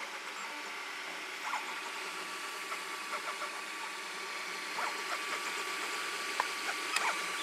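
Ord Bot 3D printer running mid-print: a steady fan hiss with a thin, even-pitched stepper-motor whine that comes in about a second and a half in, and a few small clicks near the end.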